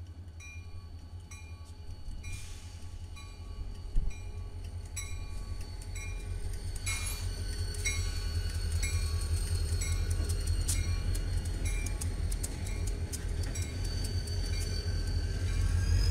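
CSX diesel freight train passing close by: a low locomotive rumble that grows louder, with a sharp knock about four seconds in, then the cars' wheels clicking repeatedly and a rising wheel squeal near the end. A grade-crossing warning bell rings throughout in a steady rhythm, a little under two strokes a second.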